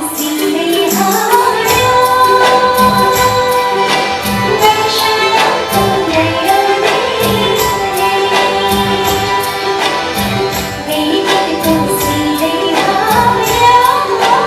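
Live band performing a Nepali film song: a voice singing a gliding melody over sustained instrumental accompaniment, with a steady beat of hand drums such as madal and dholak.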